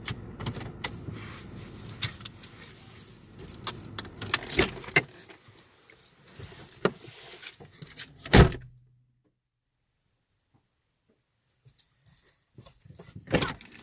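Car cabin with the engine running low and a string of clicks and rattles from handling; the engine rumble stops about five seconds in. A few louder knocks follow, then the sound cuts out entirely for a few seconds before more handling clicks near the end.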